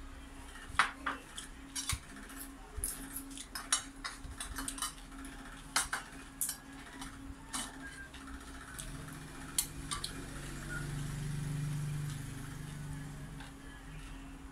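A metal spoon clinking and scraping against a bowl of boiled buffalo-meat stew, in scattered sharp clinks. For a few seconds in the second half a low steady hum joins in.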